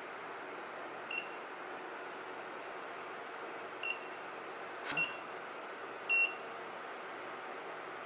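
AeroGarden Bounty Elite control panel beeping as its buttons are pressed during setup: four short high beeps a second or three apart, the last one a little longer, one of them with a tap. A steady background hiss runs underneath.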